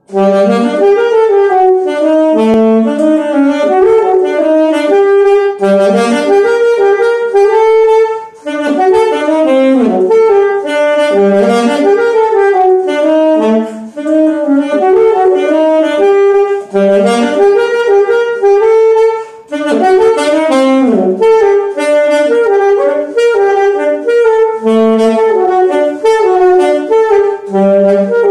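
Alto saxophone playing a lively Colombian porro melody in quick runs of short notes, with a few brief breaks for breath.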